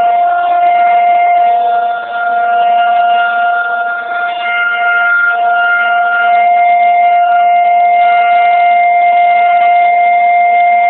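Federal Signal 2001-DC rotating electromechanical outdoor warning siren sounding its steady alert tone: one loud unwavering pitch with a rich stack of overtones, dipping briefly twice about 2 and 4 seconds in.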